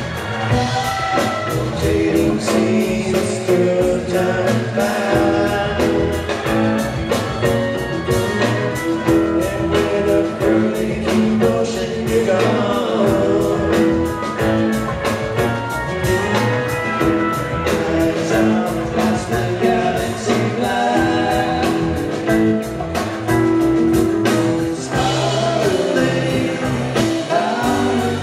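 Rock band playing live, heard from the audience: guitar, bass and a steady drum beat.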